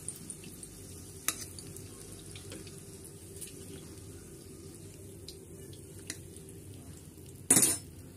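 Metal tongs and slotted spatula clicking against a nonstick kadai as fried boiled eggs are lifted out of the hot oil, over a faint sizzle of the oil. A louder clatter of metal near the end.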